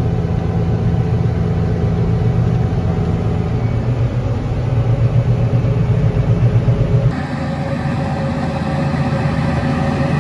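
JCB Fastrac tractor's engine running steadily under load, driving a KC Bruiser roller mill rolling grain, heard as a low steady hum from inside the cab. About seven seconds in, the sound cuts to the tractor and mill heard from outside: a steady machine hum with a higher whine and hiss.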